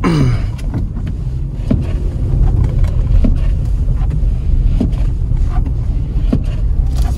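Kia Stinger driving slowly over snow, heard from inside the cabin: a steady low engine and road rumble. A light knock comes about every second and a half from the windshield wipers.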